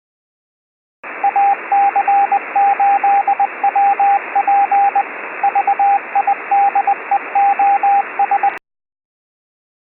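Morse code heard on a radio: a single steady tone keyed in dots and dashes over the hiss of receiver static. It starts about a second in and cuts off abruptly near the end.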